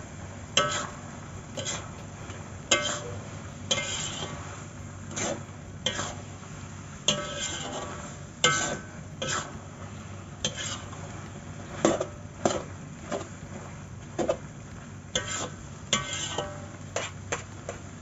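Spatula scraping and knocking against a steel wok while stir-frying rice vermicelli: an irregular run of scrapes and clanks about once a second, each ringing briefly, over a steady low hum.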